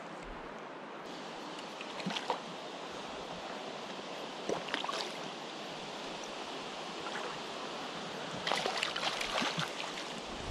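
River water rushing steadily, with a few faint scattered clicks and knocks.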